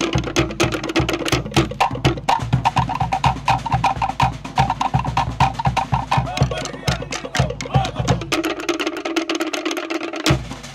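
Cook Islands drum ensemble: wooden ka'ara slit drums struck with sticks in a fast, steady pattern of many strokes a second, over a deep laced pa'u bass drum. The bass drum drops out for about two seconds near the end, then comes back with a loud stroke.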